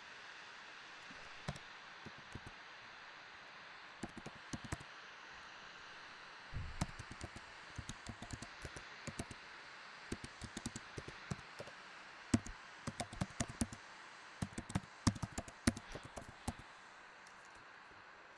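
Typing on a computer keyboard: sharp key clicks in several quick runs with pauses between, over a steady faint hiss.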